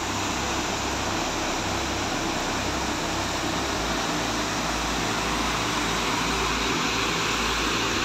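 Waterfall rushing over a weir and down a rocky cascade: a steady, even rush of water.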